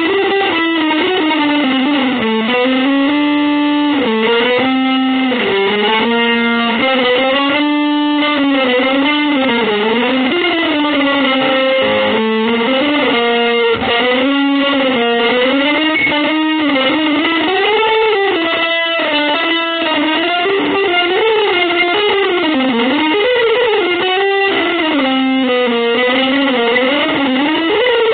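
Electric guitar playing one continuous melodic line, sliding up and down in pitch between held notes.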